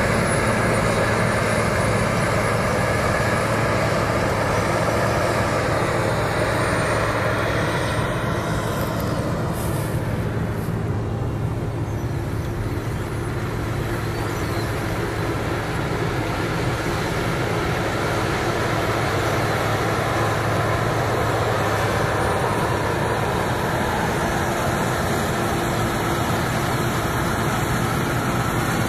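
Claas Lexion 460 combine harvester running steadily while harvesting wheat: a continuous engine and machinery drone that softens a little partway through before settling back.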